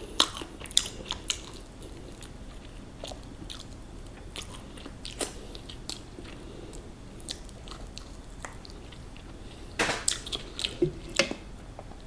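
Close-up sound of someone eating crispy fried chicken: crunchy bites into the coating and chewing. There are sharp crunches near the start and a louder run of crunches about ten seconds in.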